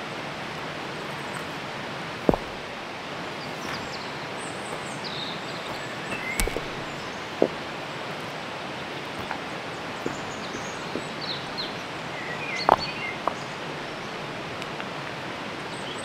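River water rushing steadily, with a few sharp snaps and brief high bird chirps over it.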